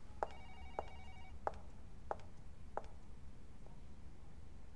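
High-heeled footsteps: five unhurried clicks about two-thirds of a second apart that stop about three seconds in. A brief electronic tone sounds under the first two steps.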